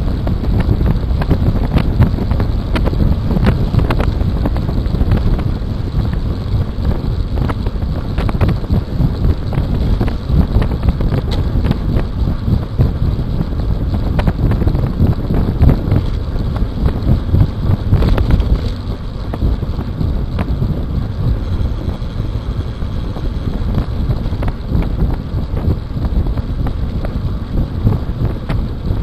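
Wind buffeting the microphone of a Cycliq bike camera on a road bike racing at about 45 km/h, a loud, steady rumble with scattered small clicks. It dips briefly in level a little past halfway.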